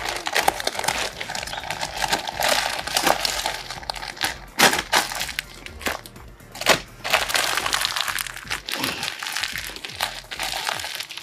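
Clear plastic bag crinkling and rustling as the neck of a straw-packed mushroom bed bag is gathered and pressed tight by hand. Irregular sharp crackles run throughout.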